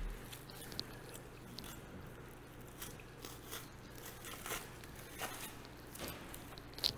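Knife swipes through a thick, dry bison hide as it is cut away from the carcass: a run of short, irregular slicing strokes with a sharper click near the end, over a steady low hum.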